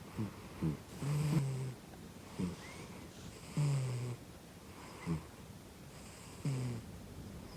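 A domestic cat snoring heavily though awake: a longer low snore about every two and a half seconds, three in all, with short sharp snorts in between.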